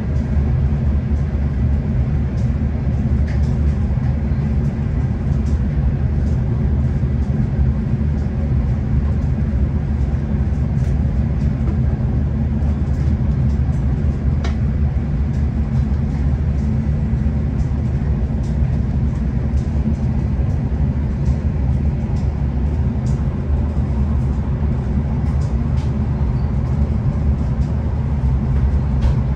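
Steady low rumble of a V/Line passenger train running along the track, heard from inside the carriage, with a few faint clicks from the wheels and car body.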